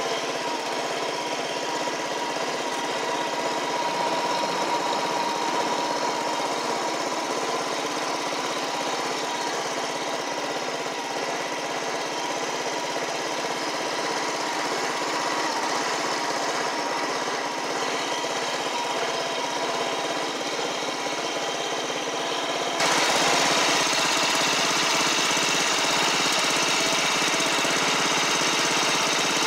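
Simplicity Sunrunner garden tractor's engine running steadily as the tractor is driven. About 23 seconds in, the sound abruptly becomes louder and fuller and then holds steady.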